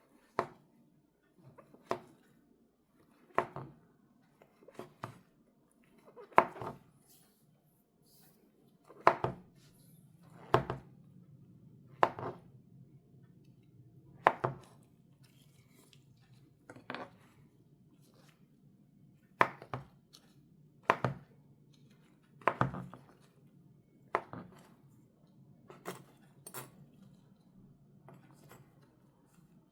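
Kitchen knife slicing a large king oyster mushroom into thin strips, each stroke ending in a sharp knock on the cutting board. The strokes are slow and unhurried, one every second or two.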